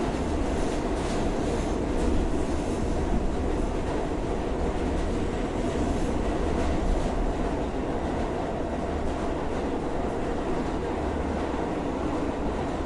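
New York City subway train running with a steady rumble, with light clicking from the wheels over the rails in the first few seconds.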